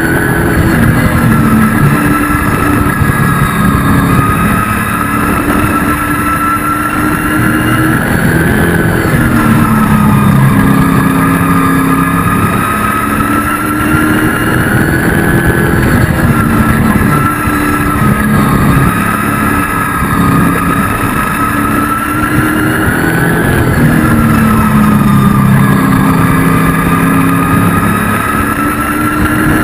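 Race truck engine at racing speed, heard from inside the cab. Its pitch rises on the straights and drops into the turns in a cycle of about seven seconds, lap after lap.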